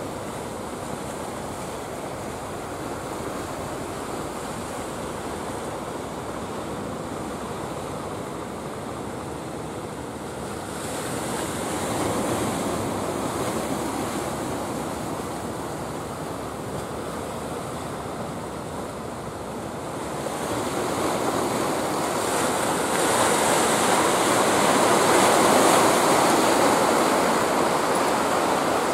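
Sea waves breaking and washing against a rocky shore, the surf swelling louder about a third of the way in and again, louder still, near the end.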